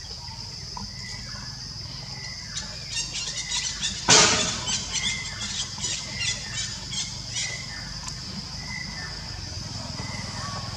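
A run of shrill macaque squeals, several short calls a second, from about two and a half seconds in to about seven and a half, loudest in one harsh screech about four seconds in. Under it runs a steady high drone of forest insects.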